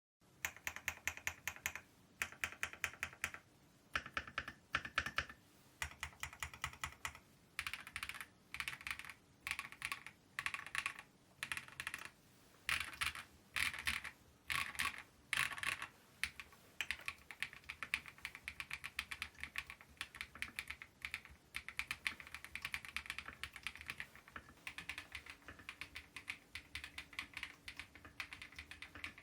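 Typing on a KiiBOOM Phantom 81 V2 mechanical keyboard: short bursts of keystrokes about once a second, then steady continuous typing from about halfway.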